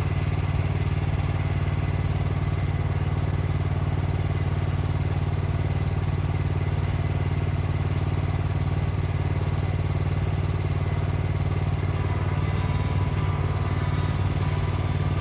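An engine running steadily at an even speed, with a few light metallic clicks and clatter in the last few seconds.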